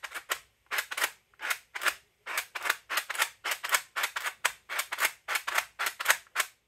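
3D-printed plastic seven-segment mechanical counter being worked by thumb on its push button, each press ratcheting the segments to the next digit. Sharp plastic clicks, mostly in quick pairs, about two presses a second.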